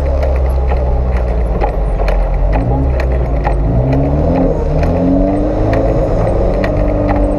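Off-road 4x4's engine running and revving up and down. Frequent short knocks and clatter come through over it, the sound of the vehicle being jolted over rough ground.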